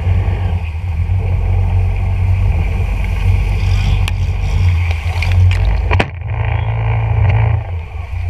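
Boat motor running steadily as the boat pushes through a narrow cane-choked marsh ditch, with a few sharp swishes and knocks of cane against the boat; the sound changes just after the middle.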